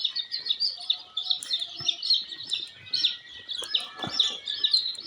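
A flock of brown layer chicks peeping constantly: many short, high, overlapping peeps, with a couple of dull low thumps among them.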